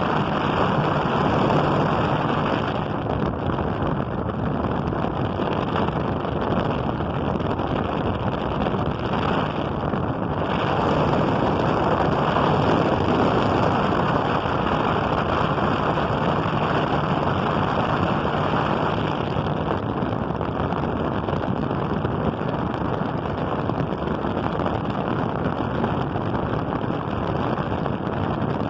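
40 cm turbo electric fan running at speed: a steady rush of air with a faint low motor hum.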